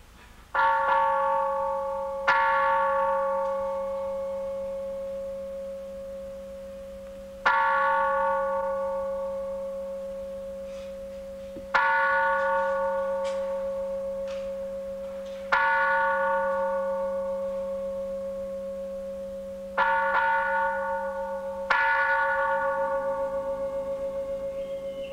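A ceremonial bell struck seven times at uneven intervals, each stroke ringing out with several tones and slowly fading while a steady hum carries on beneath. It marks the opening of a Zen ceremony.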